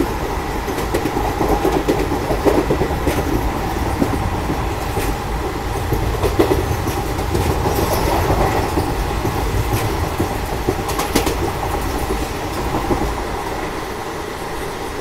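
Passenger train coach running along the track: a steady rumble of wheels on rail with scattered sharp clicks, easing a little near the end.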